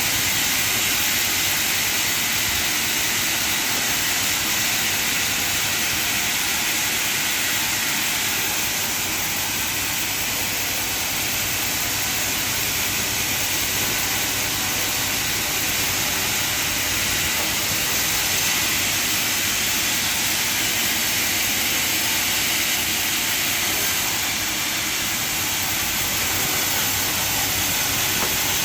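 Sawmill machinery running steadily, a constant hissing noise with no breaks or changes in level.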